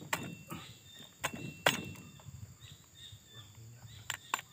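Metal hand tools clicking and tapping sharply against the piston and engine block of a Singso 6200 chainsaw as a stuck part is worked loose: about five clicks, the loudest about a second and a half in, two close together near the end. Birds chirp faintly in the background.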